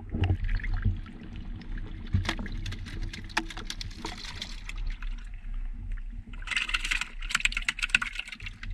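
Water splashing and sloshing with many quick clicks and knocks as speared fish are handled into a floating plastic catch box. The clicks come thickest near the end.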